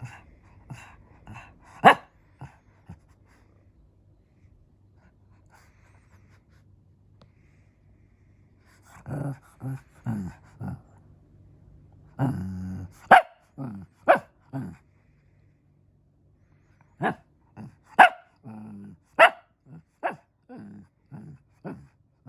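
Shih Tzu barking and growling in short sharp bursts, play barking from a dog that wants to be played with. A few barks open, then a quiet stretch of several seconds, then a run of growls and barks from about nine seconds in.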